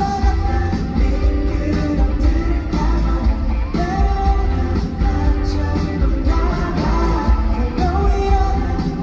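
Live pop-rock band performing a song, with a male lead vocal singing over electric band backing and a heavy, loud bass.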